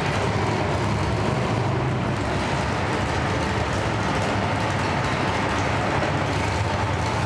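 Modified 4x4 pulling truck's engine running at a steady low speed as the truck drives slowly.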